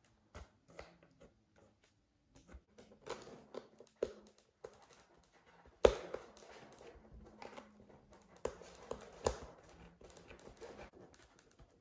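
Hands handling a foam RC model half-wing and its parts: scattered light clicks, taps and rustling, with a sharper knock about six seconds in and another about nine seconds in.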